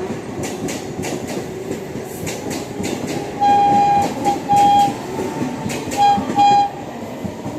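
Passing express train, its wheels clattering over rail joints, while the locomotive horn sounds in two groups of blasts. A long blast comes about three and a half seconds in, then a short blip and another long blast. Two short blasts follow at about six seconds.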